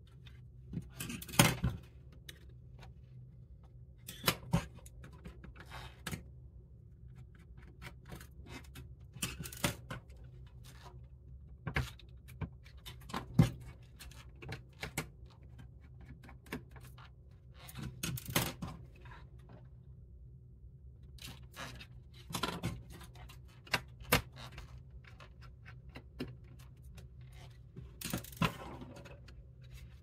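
Irregular small clicks, taps and light scraping from hands handling the plastic case of an Asus Chromebox 5 mini PC and a precision screwdriver on a tabletop, over a low steady hum.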